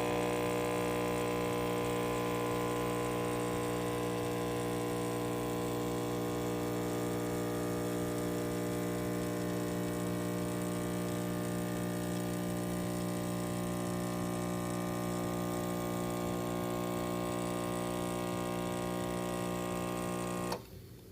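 Espresso machine's pump humming steadily while brewing, then cutting off suddenly near the end.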